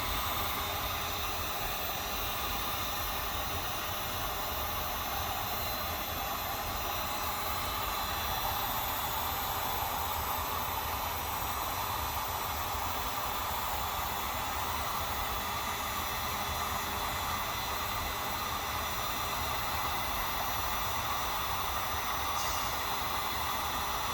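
Heat gun running steadily: an even, unbroken rushing hiss of its fan and hot air as it warms a hose end.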